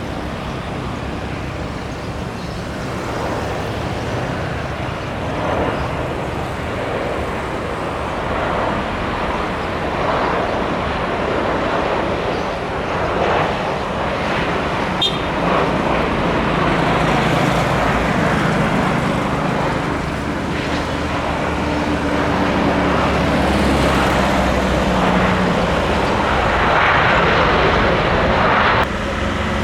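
Road traffic passing close by: a steady wash of tyre and engine noise with vehicles swelling past every few seconds. A droning engine joins in about halfway through, and the sound changes abruptly near the end.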